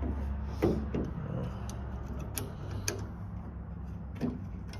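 A few sharp clicks and taps of small metal hardware being handled as a 10 mm nut goes onto the door handle's stud, over a low steady hum.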